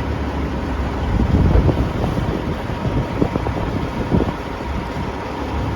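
Wind buffeting the microphone over a steady low engine hum, with a few short knocks from handling.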